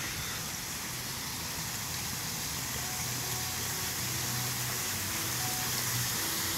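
Water pouring over a decorative waterfall: a steady, even hiss.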